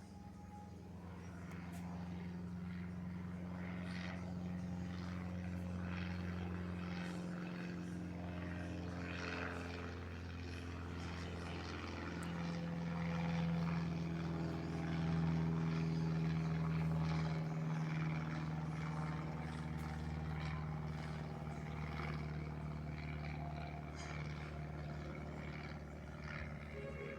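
Cessna 172 single-engine propeller plane flying past overhead, a steady propeller and engine drone. It grows louder toward the middle and drops slightly in pitch as it passes, then fades a little.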